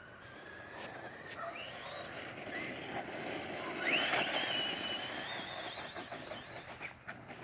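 Traxxas Rustler VXL RC truck's brushless motor whining under throttle over the hiss of its tyres on loose dirt. The whine sweeps sharply up in pitch about four seconds in, loudest as the truck passes close, then holds high before fading.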